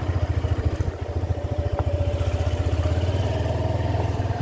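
Engine running steadily, a fast, even low pulsing.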